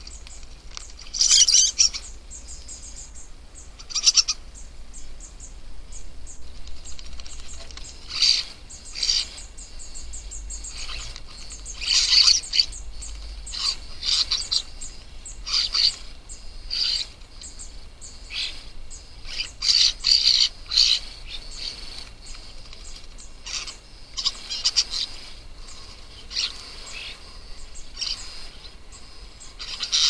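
Juvenile common starlings calling in short, high bursts every second or two, some loud, with splashing as they bathe in shallow water.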